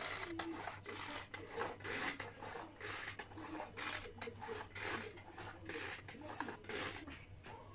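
Pull-cord manual food chopper worked over and over, a short rasping whirr about twice a second as its blades spin to chop crab sticks and egg.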